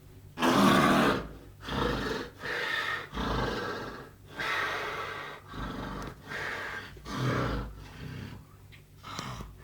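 Loud snoring: rasping, noisy breaths about once a second, the first the loudest.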